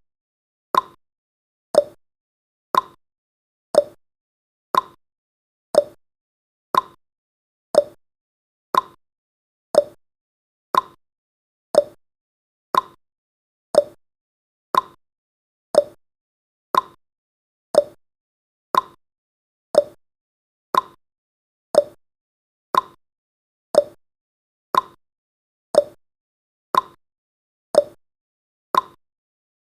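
Countdown timer's clock-tick sound effect: one short, sharp tick every second, evenly and steadily repeated.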